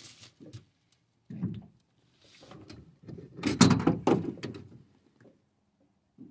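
Knocks and thumps of a landed fish and a landing net being handled in a boat, with a louder cluster of sharp knocks and rattles from about three and a half to four and a half seconds in.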